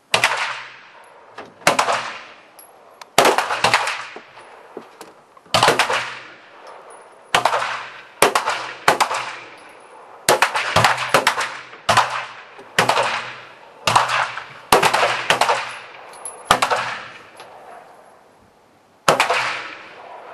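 Pistol shots from several shooters in a slow-fire precision final: about fifteen sharp cracks at irregular intervals, each followed by a ringing echo that dies away over a second or so.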